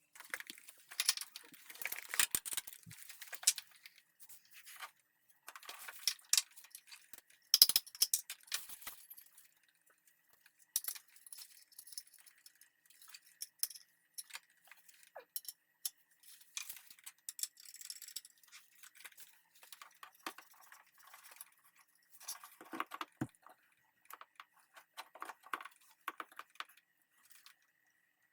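Irregular clicks, clinks and rattles of hand work with small metal parts and tools, coming in clusters with short gaps. A faint steady high-pitched tone runs underneath.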